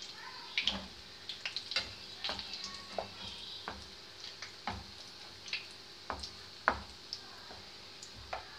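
Pieces of banana-flour cookie dough deep-frying in coconut oil in a pan: a steady sizzle with scattered sharp taps as they are stirred and turned with a wooden spatula, the loudest tap about two-thirds of the way through.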